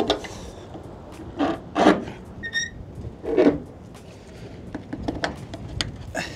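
Semi-truck air brake lines being coupled to a flatbed trailer: the gladhands are handled and locked together in a few short metal knocks and clanks, a brief high squeak, then a run of light clicks near the end.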